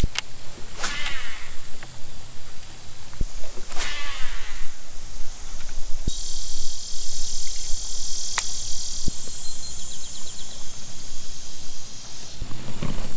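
Insects droning in a steady high buzz on a hot summer day. A second, higher buzzing layer joins in from about six seconds to eleven seconds. There is low rumble and a few short knocks and rustles, the loudest near one second and four seconds in.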